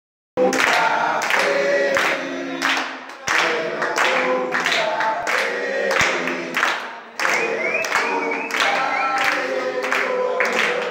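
A group of young men singing a birthday song together in loud, unaccompanied chorus, with hand clapping, starting abruptly just after the beginning.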